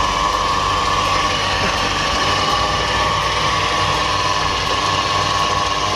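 Newly fitted belt-driven supercharger whining steadily on a car engine running at idle, a loud, high, unbroken whine over the engine's steady running, on the first start with the blower in place.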